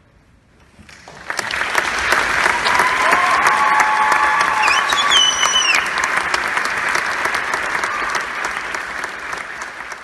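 Concert audience applauding: the clapping breaks out about a second in, holds steady and loud, and tapers off near the end, with a few voices calling out over it in the middle.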